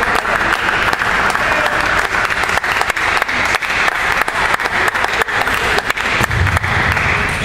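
A crowd applauding, with many irregular sharp claps over a dense, steady wash of noise. A low rumble joins in about six seconds in.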